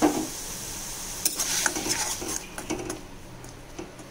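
A metal spoon scraping and clinking against a kadai as thick star gooseberry paste is stirred and sautéed, with a faint sizzle of the paste cooking. A single knock comes right at the start, and the scraping strokes cluster in the middle.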